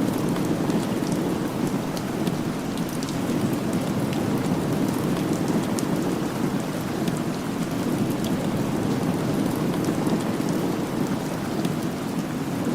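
Steady rain falling: an even, dense hiss with scattered sharp drop ticks.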